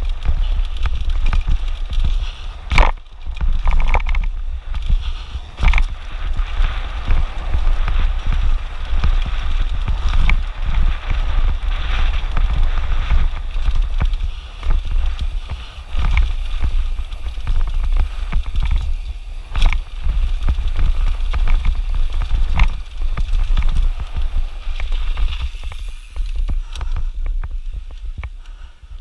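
Mountain bike ridden fast down a rocky dirt trail, heard from a camera on the rider: wind buffeting the microphone as a steady low rumble, tyres crunching over dirt and stones, and sharp knocks as the bike hits rocks and bumps. It fades in the last few seconds.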